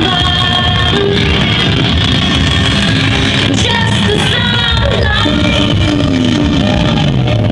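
Loud music with a singing voice over a heavy, pulsing bass.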